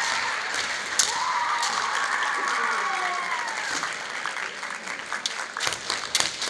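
Female kendo competitors' long, high kiai shouts, several seconds each, with sharp clacks of bamboo shinai and stamping feet on the wooden floor, the clacks coming thick near the end.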